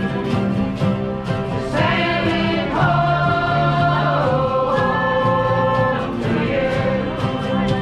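A folk group singing together in chorus over strummed acoustic guitars, holding long notes through the middle of the phrase.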